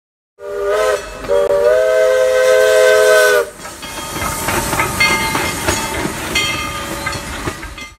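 Steam locomotive 'Skookum', a Baldwin 2-4-4-2 Mallet, sounding its chime steam whistle: a short toot, then a long blast of about two seconds that cuts off sharply. After that comes the locomotive's steam hiss and working noise with a bell ringing.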